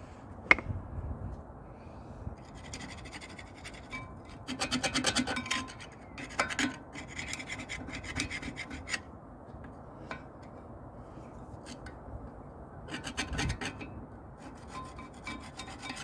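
Rapid rasping strokes of the front brake caliper and pad carrier being scrubbed clean by hand, in several short bursts, after a sharp click about half a second in.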